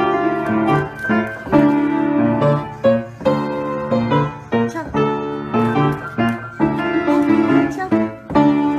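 Piano being played: a melody of struck notes over repeated low bass notes, at a steady pace.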